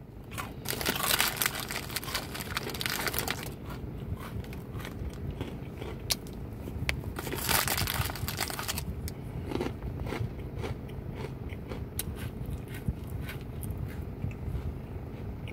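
Crunchy whole grain animal crackers being bitten and chewed close to the microphone: two louder spells of crunching, one starting just under a second in and one about halfway, with many small sharp crackles between them, over a steady low hum.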